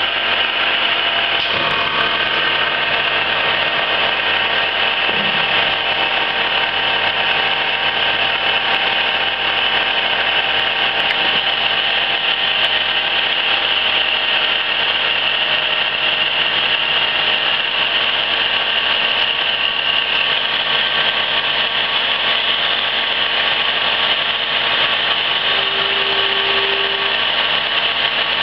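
1974 Emi-Mec E Sprint plugboard automatic lathe running steadily on a slow-feed test run, its motor and drive humming under the hiss of cutting and flowing coolant as a drill works into the bar stock.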